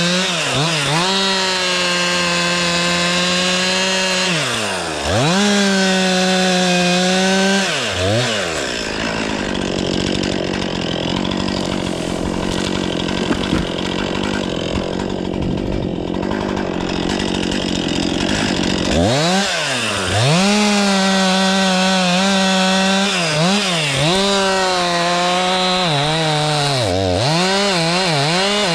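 Stihl MS 500i two-stroke chainsaw running at full throttle with quick drops in revs. From about eight seconds in, the engine note falls and turns rougher for some ten seconds as the chain cuts wood under load. It then revs high again with repeated throttle blips.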